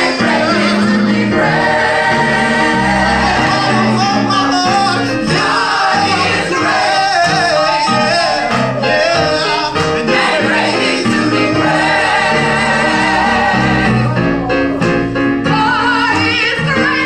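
Gospel vocal group singing in harmony, with several voices holding long notes together over musical backing.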